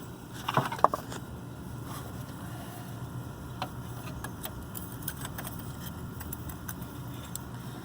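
Light metallic clicks and clinks of small metal parts and tools being handled, a short cluster of them about half a second in, then scattered single ticks over a steady low hum.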